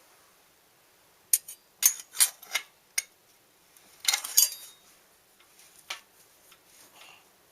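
A series of sharp, irregular metallic clicks and clinks: a handful over a couple of seconds, a quick cluster about four seconds in, then a single click.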